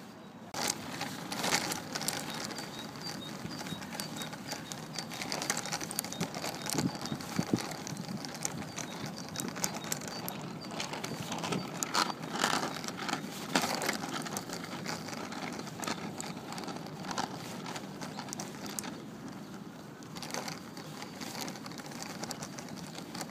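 Small plastic wheels of a child's three-wheeled kick scooter rolling over rough asphalt: a steady gritty rolling noise with frequent crackles and clicks.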